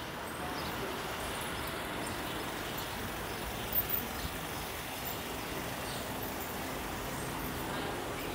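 Street traffic noise, a steady wash of passing vehicles with a faint engine hum, and two short sharp sounds just before four seconds in.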